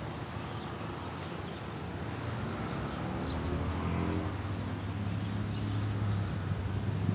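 A motor engine humming at a low, steady pitch, growing louder from about two seconds in, with a brief rise and fall in pitch partway through. Short high bird chirps sound over it.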